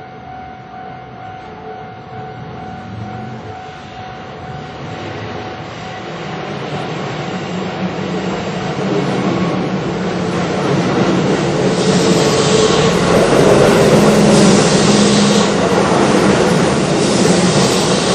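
A Keihan electric train approaching and running over a level crossing, its rumble and wheel-on-rail noise growing steadily louder until it is passing close by. At first the crossing's warning bell is ringing, and the train's noise soon drowns it out.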